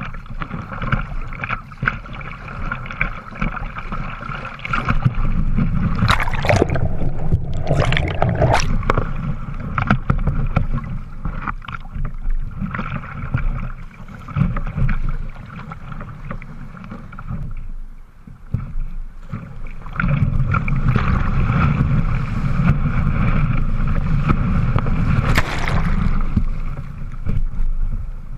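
Water rushing and splashing along a surf kayak's hull as it is paddled through the waves, heard from the bow deck, with louder stretches and a few sharp splashes about six, eight and twenty-five seconds in.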